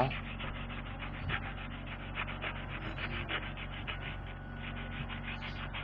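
Sandpaper rubbed quickly back and forth by hand over the friction lining of a scooter's rear drum-brake shoe, in a steady run of short, even, scratchy strokes. The lining is being sanded level to take off the glazed rub marks.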